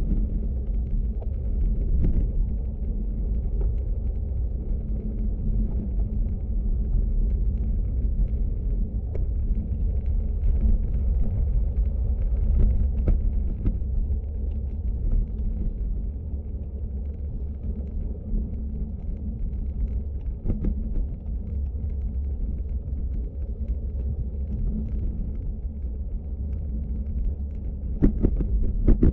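Wind and road noise from a road bike rolling over asphalt, picked up by a handlebar-mounted camera as a steady low rumble. The rumble eases a little about halfway through, and a few short knocks come near the end.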